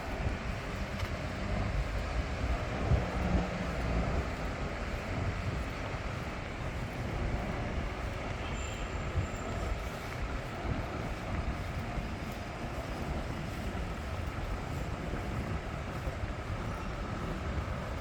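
City street ambience: a steady low rumble of passing vehicles, with no single sound standing out.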